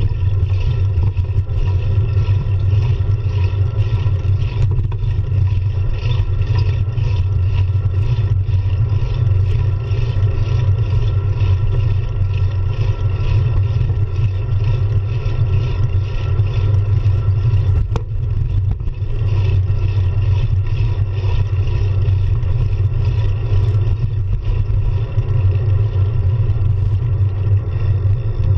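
Steady low wind-and-road rumble from a bicycle rolling along a city street, picked up by an action camera riding on the bike, with a fainter hiss above it. A single sharp knock comes about two-thirds of the way through.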